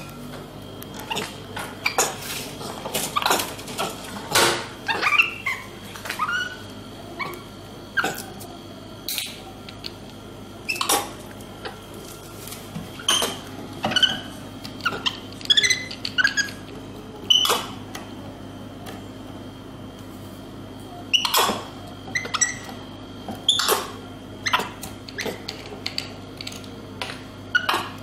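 Capuchin monkey giving short, high-pitched squeaks over and over, mixed with sharp clicks and knocks as it handles the vending machine and a plastic drink bottle. A steady low hum runs underneath.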